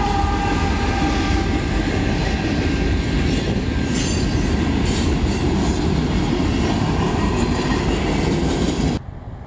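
Diesel freight train passing close by: a trailing locomotive's engine rumbles past, then loaded freight cars roll by with wheels clattering over the rail joints. The tail of the locomotive horn fades out in the first second or so, and the sound cuts off abruptly near the end.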